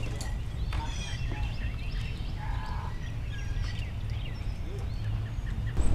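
Birds chirping and calling: many short, high chirps scattered through, over a steady low rumble.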